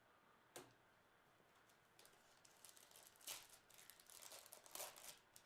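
Faint clicks and rustles of trading cards and packaging being handled, with a single click about half a second in and louder rustles a little past three seconds and near five seconds.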